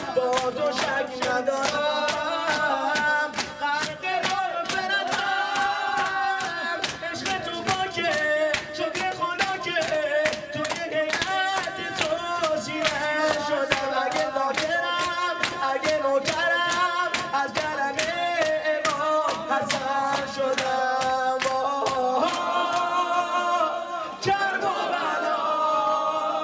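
A man singing a Shia religious lament (noha) into a microphone, unaccompanied by instruments, with other voices joining in, over a fast, steady beat of sharp slaps.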